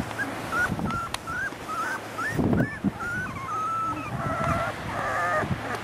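Three-week-old springer spaniel puppies whimpering: a run of short, high squeaks, about two or three a second, then a couple of longer, wavering whines near the end.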